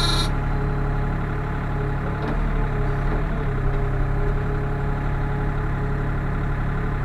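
Sany SY35U mini excavator's diesel engine idling steadily, heard from inside the cab. A high whine cuts off just after the start.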